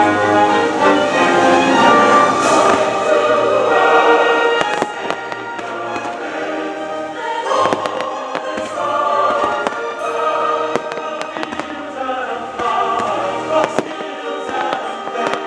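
Fireworks going off: scattered sharp pops and crackles from small shells and fountains, more of them in the second half. They sound over loud choral music.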